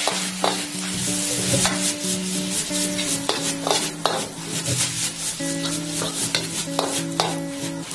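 A steel ladle scraping and knocking against a wok as fried rice is tossed and stir-fried over the heat, with the oil sizzling. The knocks come irregularly, several a second.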